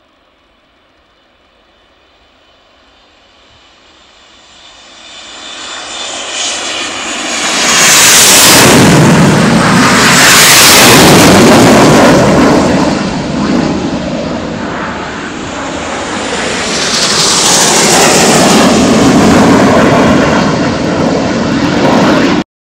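Several BAE Hawk T1 jet trainers flying low overhead on departure: faint jet noise swells over several seconds into a very loud rumble and roar, with a few peaks as the jets pass one after another, then cuts off suddenly near the end.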